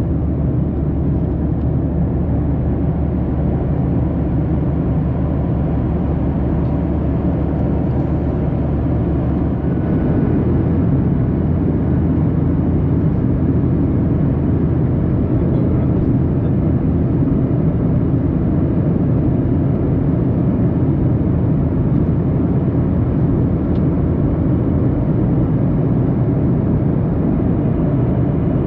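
Steady in-flight cabin noise of a Boeing 737-800 airliner: the constant rush of its jet engines and the airflow past the fuselage, deep and dense. About ten seconds in the sound shifts slightly and grows a little louder.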